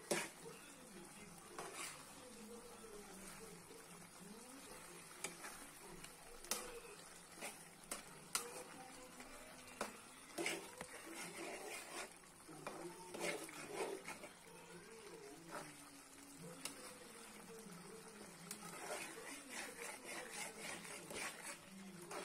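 Spatula scraping and knocking against the side of a metal kadai as thick chicken curry is stirred, in irregular clicks and scrapes.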